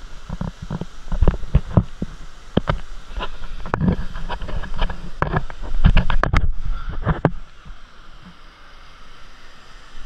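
Irregular knocks and bumps of a handheld action camera moving against wet rock, over a steady rush of flowing water. The knocks stop about seven seconds in, leaving only the water.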